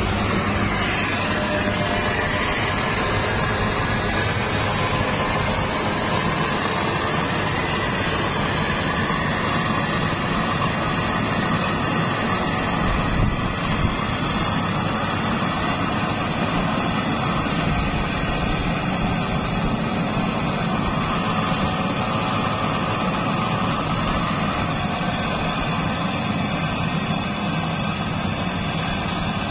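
Rice combine harvester running steadily while cutting and threshing a paddy crop: a dense, even engine and machinery noise.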